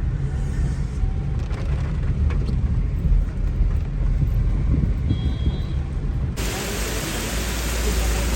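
Low rumble of a car moving on a rain-soaked road. About six seconds in it switches suddenly to a steady hiss of heavy rain.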